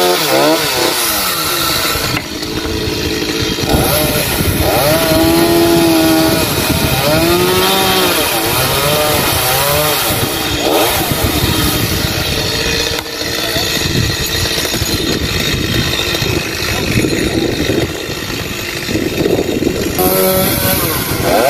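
Stihl MS 382 two-stroke chainsaw cutting through rain tree limbs. The engine runs loud and steady, and its pitch rises and falls over and over as the chain bites into the wood and frees again.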